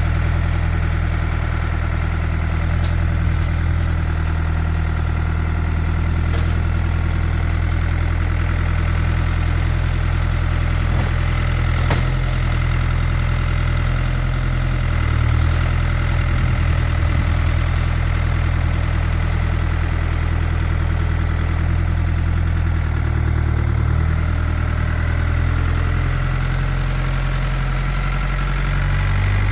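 Farm tractor engine running steadily at low revs, its note shifting a few times as it is worked, with a single sharp click about twelve seconds in.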